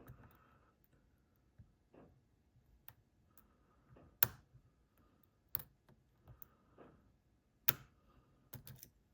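Lock pick working the pins of an ASSA 600 pin-tumbler lock: faint scraping and small ticks, with three sharper clicks spread through the middle and later part.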